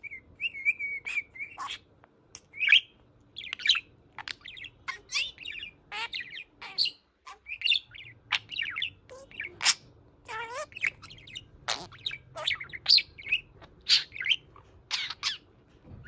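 A male budgerigar chattering, with a quick string of short chirps, buzzy warbles and sharp high calls broken by brief pauses.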